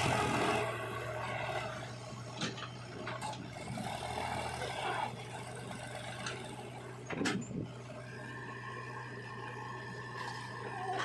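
A machine's engine running steadily, with a few sharp knocks along the way, one pair about seven seconds in. A higher steady tone joins about eight seconds in.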